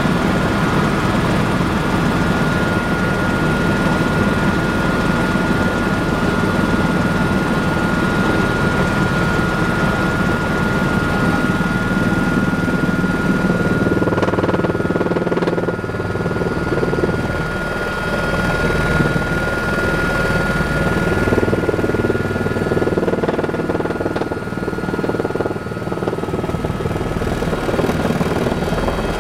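Tour helicopter's rotor and turbine engine running steadily, with a constant high whine over the rotor noise, heard from inside the cabin as it descends and settles onto a helipad.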